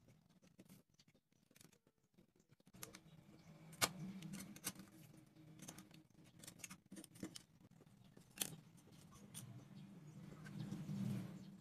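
Craft knife scraping and cutting into a wooden popsicle stick on a wooden board, a scratchy sound broken by sharp clicks and taps as the sticks and cut pieces are handled; the sharpest click comes about 4 s in.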